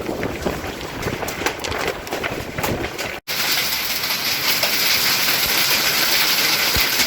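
Thunderstorm rain and hail with scattered sharp taps of impacts over a noisy wash of wind and rain. After a sudden break about three seconds in, a dense, steady hiss of heavy downpour.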